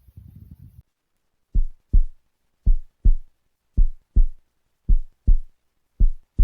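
Heartbeat sound: a low throbbing rumble that stops under a second in. After a short gap come clean lub-dub pairs of low thumps, five double beats a little over a second apart.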